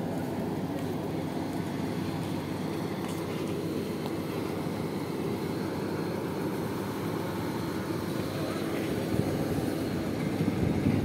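Steady low engine drone from machinery on an airport apron, with a steady hum running through it. There are a few brief bumps near the end.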